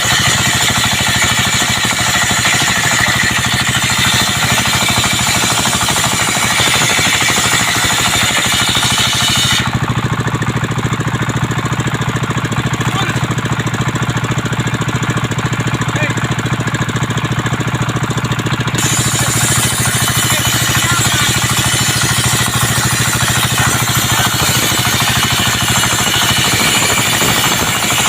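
Engine-driven circular sawmill running steadily, a motor drone under a loud saw hiss as coconut wood is cut into rafters. The high hiss drops out for about nine seconds in the middle, leaving the engine running alone.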